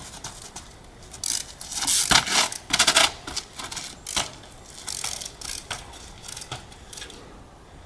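Trials bicycle being hopped up a pile of quarry rock: a run of sharp knocks and scrapes as the tyres land and scrub on the stone and the bike's parts rattle, loudest about two to three seconds in, then one hard knock about four seconds in and lighter scuffs and clicks after.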